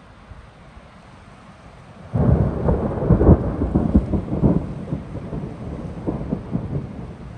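Thunder: a sudden crackling clap about two seconds in, then a rolling rumble that slowly fades away.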